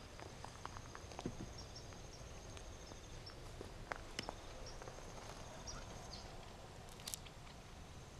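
Soft, careful footsteps and light ticks and snaps on grass and dry ground during a slow stalk, with faint high insect trilling and a few short chirps behind them.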